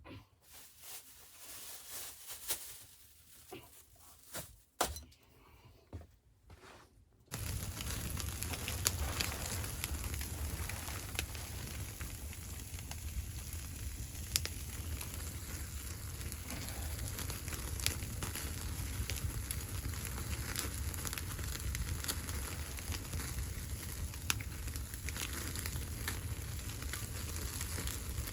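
Scattered small knocks and rustles. About seven seconds in, a sudden change to a fire crackling steadily over a low rumble.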